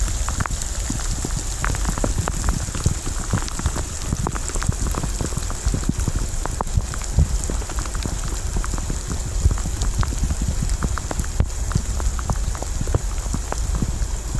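Heavy tropical-storm rain falling, with many sharp individual drop hits close by over a steady low rumble.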